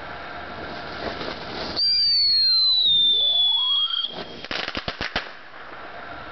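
Halsbrand firework fountain going off. About two seconds in, a loud whistle starts and slides slowly lower in pitch for about two seconds. It is followed by a quick string of crackling pops lasting about a second.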